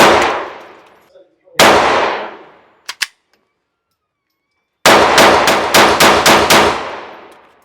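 Glock G44 .22 LR pistol firing. A single shot about a second and a half in, two faint clicks near the three-second mark, then a quick string of about seven shots from about five seconds in, a little over three a second, each string trailing off in echo.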